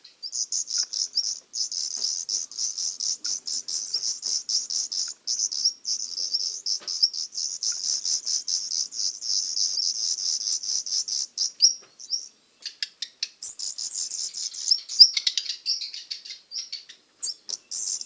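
Black redstart nestlings begging: a dense run of rapid, high-pitched cheeping calls, broken by short pauses about six and twelve seconds in.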